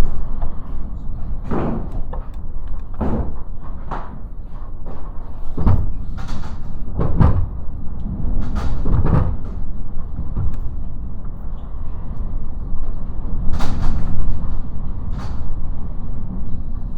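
Typhoon wind buffeting the microphone on the Mt. Fuji summit: a loud, heavy low rumble broken by irregular sharp bangs and gust blasts about once or twice every second or two.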